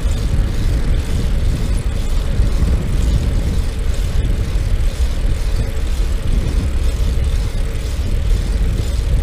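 Wind rushing over a moving bicycle-mounted action camera's microphone: a steady, loud, low rumble.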